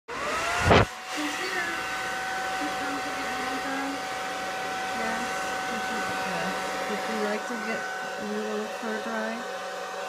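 Hand-held blow dryer running steadily: a rushing of air with a steady high motor whine. A loud knock comes under a second in.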